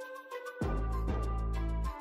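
Background music with a steady beat; a heavy bass part comes in about half a second in and drops out just before the end.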